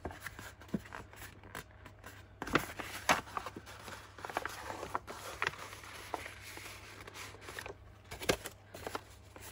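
Thick brown packaging paper rustling and crinkling as hands fold and crease it into a paper bag, with a few light taps.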